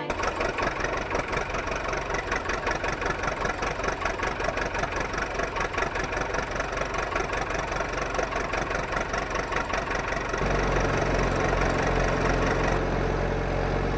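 Diesel engine sound of a JCB backhoe loader, chugging in a fast, even rhythm, then changing to a steadier, smoother hum about ten seconds in.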